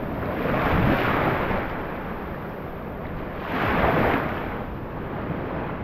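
Small waves washing in shallow water over a sandy reef flat, swelling twice, with wind rumbling on the microphone.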